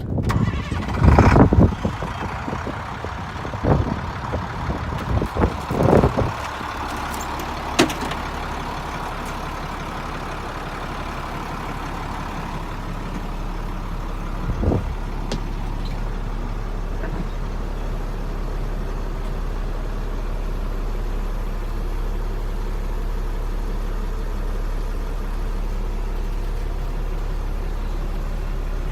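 1996 International 4900 bucket truck's engine running steadily at idle, a constant low hum. Several loud knocks and bangs come in the first eight seconds, and one more near fifteen seconds.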